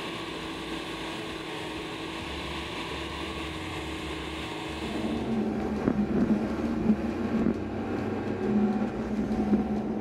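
Heavy wood-processing machinery running steadily. About halfway through, the sound changes to a lower, louder diesel rumble with irregular cracks and knocks as an excavator grapple works through tree stumps and roots.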